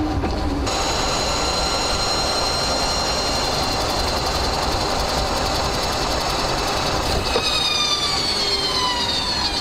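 In-cabin sound of a 1969 MGB under way: engine and drivetrain whine holding a steady pitch, then falling from about seven seconds in as the car decelerates. A single clonk comes about seven and a half seconds in. This is the deceleration clonk from the Salisbury rear axle's differential that the owner sets out to cure by replacing the differential spacer.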